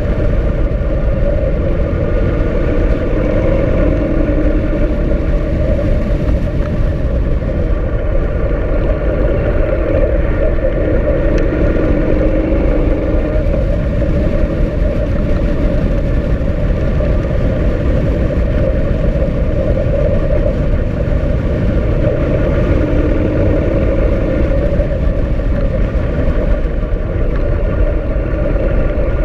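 Steady rush of wind on a helmet-mounted camera riding a moving motorcycle, with the motorcycle's engine and road noise running underneath.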